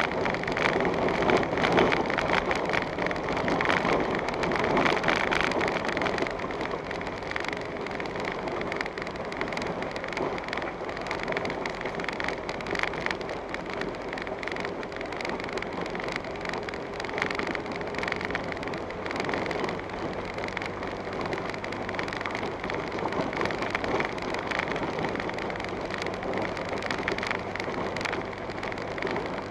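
A vehicle crawls over a rough dirt and gravel track, heard from inside the cabin. The engine runs low under a constant crackle of tyres on loose stones. It turns a little quieter after about six seconds as the vehicle slows.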